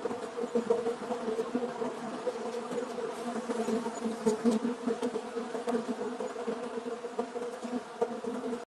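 Insects buzzing, a steady droning hum that wavers slightly; it cuts off suddenly near the end.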